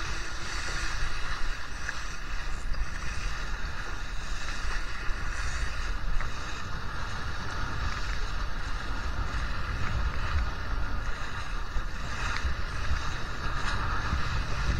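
Sailing dinghy under way in strong wind: steady wind rumble on the microphone over the rushing and splashing of water along the hull.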